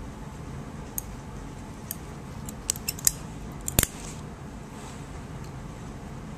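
Sharp metallic clicks of surgical instruments (needle holder and forceps) being handled while suturing, a handful scattered over several seconds with one louder knock near the middle.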